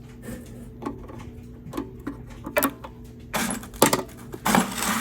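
Hand tools working on a small engine: pliers and metal parts give several light clicks, then two short scraping, rustling bursts come near the end as a hose clamp is worked with pliers.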